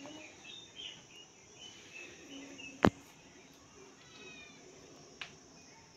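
A spoon working mango pulp into a small stainless-steel bowl: one sharp knock about three seconds in and a lighter tap near the end, over faint high chirps in the background.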